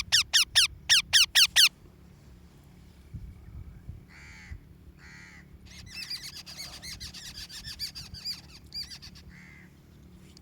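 A parrot calling: a burst of about eight loud, sharp calls in quick succession, each falling in pitch. Then two shorter calls about four and five seconds in, and a long run of rapid chattering calls from about six to nine seconds in.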